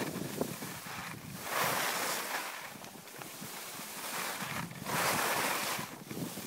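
Skis sliding and scraping over packed snow, with wind rushing over the microphone; the hiss swells twice, about a second and a half in and again near five seconds.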